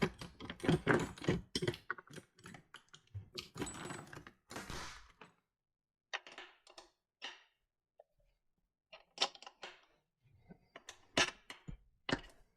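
Metal tools clinking and rattling as a socket or wrench of the right size is searched for: a dense clatter for the first five seconds or so, then scattered single clicks and knocks.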